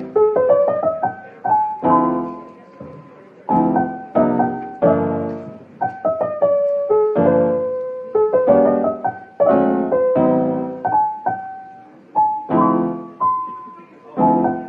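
Background piano music: chords struck about once a second and left to fade, with a simple melody of single notes above them.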